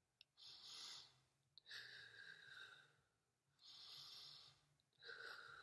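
A woman breathing from the belly while holding a plank: four faint breaths, each about a second long, with short pauses between.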